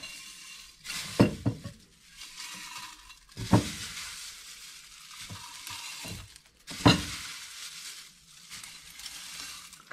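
Crisp dehydrated leek pieces rustling and crackling as handfuls are crumbled and dropped into a glass jar. Three sharper clicks stand out, about one, three and a half and seven seconds in.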